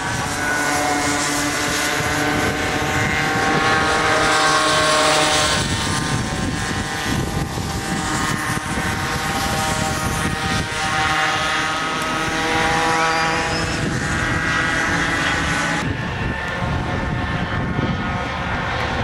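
Small two-stroke Kid Kart engines buzzing as the karts race around the track. Several engine notes overlap, their pitch drifting up and down as the karts speed up, slow for corners and pass.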